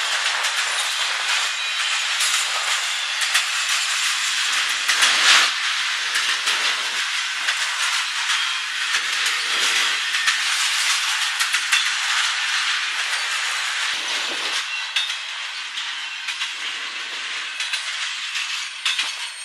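Intermodal freight train of highway trailers on flatcars rolling past close by: a steady rushing noise of steel wheels on rail with scattered clicks and clanks. It fades over the last few seconds as the end of the train moves away.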